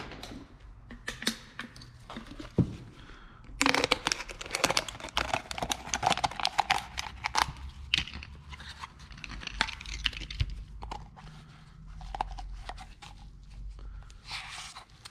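Thin plastic water bottle crinkling and crackling as it is squeezed and handled. The crackling is densest for several seconds starting about four seconds in, with scattered clicks before and after.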